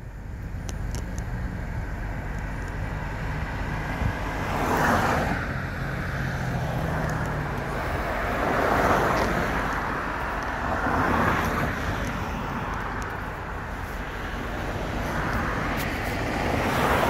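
Road traffic: cars passing one after another on a city street, each one's tyre and engine noise swelling up and fading away, about four times, over a steady low rumble.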